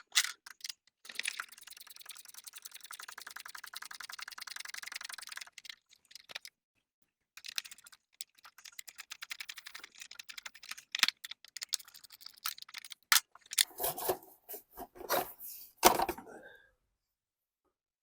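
Socket ratchet clicking rapidly for several seconds as bolts are backed out, then scattered ticks and a few heavier clunks of tools and metal parts being handled.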